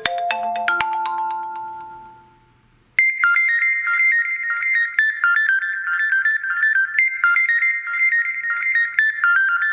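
Xiaomi Poco X3 NFC stock ringtones. One ringtone ends, its last struck notes dying away over about two seconds. After a brief near-silence, the next ringtone starts: a quick, high-pitched tune that repeats in two-second phrases.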